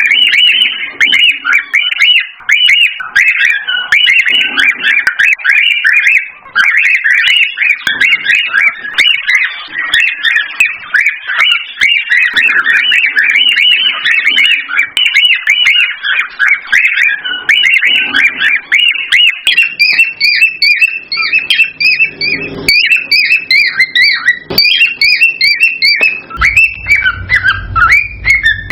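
Cockatiels chirping and whistling in a rapid, unbroken stream of short, high notes. A low hum joins in near the end.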